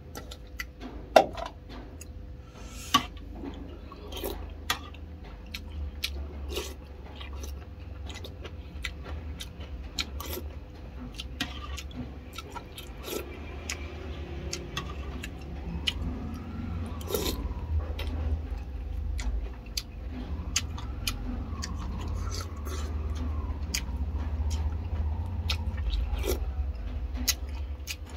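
A person eating rice soup: chewing, with sharp clinks and scrapes of a spoon against a ceramic bowl. There are several louder knocks in the first few seconds as rice is served from an aluminium pot. A steady low hum runs underneath.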